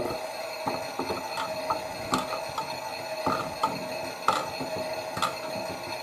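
Miele W1 toy washing machine's small motor running with a steady whine as the drum turns, with irregular clicks and knocks from the mechanism.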